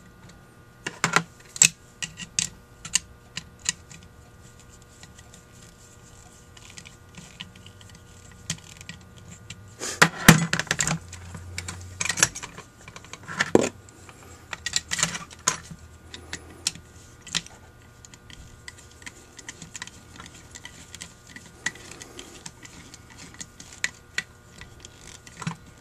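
Small metal Holley 1904 carburetor parts clicking and tapping as they are handled: the needle-and-seat, its copper washers and the retaining bolt being fitted into the bowl cover, with a screwdriver set to the bolt near the end. Scattered irregular clicks, with a busier run of knocks about ten seconds in.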